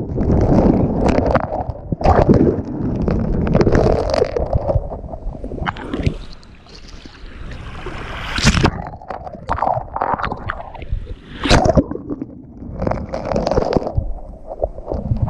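Ocean surf breaking and washing on a beach, swelling and falling back in surges, with heavy wind rumble on the microphone.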